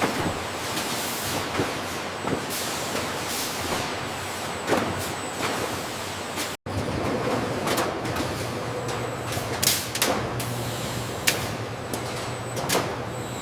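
Packaging-line machinery running: a steady mechanical din with short pneumatic hisses of air every second or so. It breaks off for an instant about six and a half seconds in, then carries on with a steady low hum underneath.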